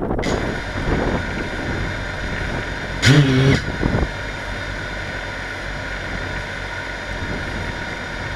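Hexacopter's six motors and propellers running steadily in flight: a constant multi-tone whine over rushing noise in gusty wind. About three seconds in, a brief loud pitched sound lasting about half a second stands out above it.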